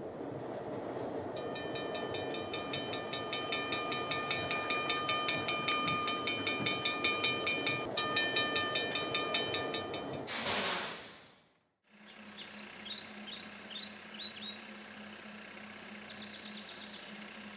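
Cartoon steam-train sound effect: a steady rhythmic clatter of wheels on rails with a high ringing tone. About ten seconds in it ends in a short loud hiss of steam as the train stops. After a brief silence, birds chirp.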